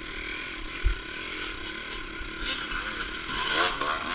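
Yamaha RT100 single-cylinder two-stroke dirt bike engine running as the bike is ridden along a trail, with a single short thump about a second in.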